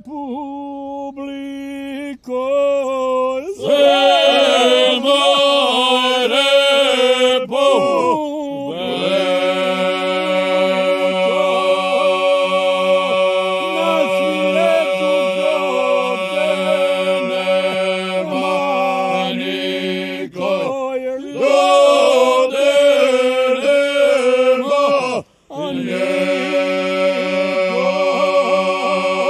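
A group of men singing a traditional folk song a cappella: one voice opens, the others join in, and a low note is held steady beneath the wavering melody for long stretches, with short breaks between phrases.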